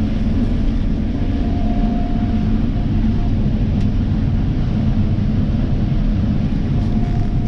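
Combine harvester running steadily while cutting soybeans: a constant low mechanical drone with a steady hum.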